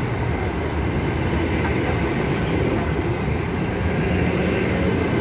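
ЭП2Д electric multiple unit running along the track, heard from inside the passenger car: a steady, even running noise of the wheels on the rails, strongest in the low range.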